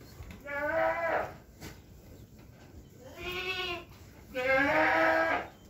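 A goat bleating three times, each call about a second long, with the last the longest and loudest.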